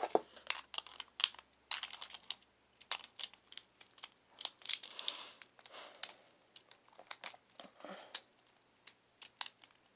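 Light, irregular clicks and taps of a Beyblade's metal disc and plastic Dimension driver being handled and fitted together by hand, with a few soft rustles around the middle.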